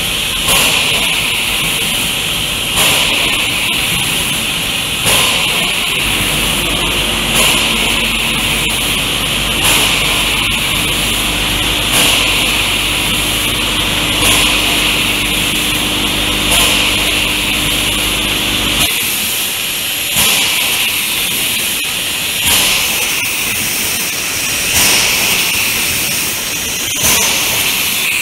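Automatic soup-pouch packing line running: a steady hiss with a sharp stroke repeating about every two and a quarter seconds. A low hum with steady tones joins in about six seconds in and stops suddenly near nineteen seconds.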